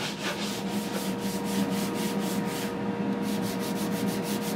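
Hand sanding block with sandpaper rubbed in quick back-and-forth strokes along the edge of a wooden cabinet door, smoothing a table-saw cut and rounding over the corners, with a short pause about three seconds in.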